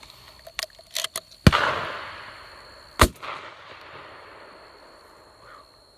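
Two shotgun shots about a second and a half apart; the first is the loudest and leaves a long echo fading away, the second is shorter.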